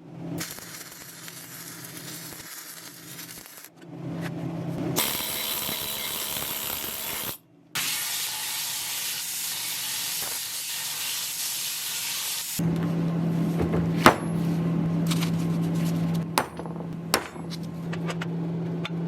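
Flux-cored MIG welding on thick steel plate, dual-shield wire laying plug welds: a steady crackling sizzle of the arc in several separate stretches that start and stop abruptly. A steady low hum joins in the second half, with a few sharp clicks.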